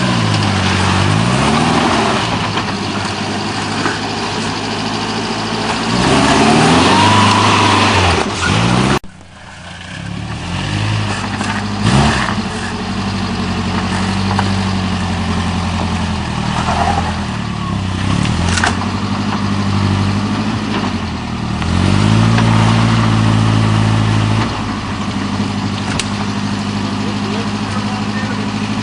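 Off-road 4x4's engine running and being revved repeatedly, its pitch climbing and dropping back several times, with a few sharp knocks.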